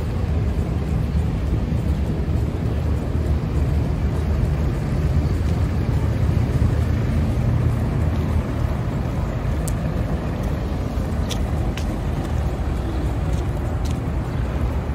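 City street noise while walking: a steady low rumble of traffic, with a few faint clicks in the second half.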